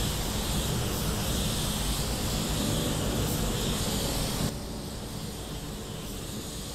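Paint spray gun hissing steadily over the low rush of the spray booth's airflow while pearl coat is laid on a panel; the spray cuts off suddenly about four and a half seconds in, leaving the booth's steady air noise.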